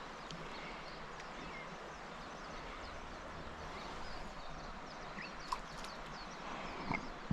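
Steady rush of flowing river water, with scattered faint high chirps and a few light clicks over it.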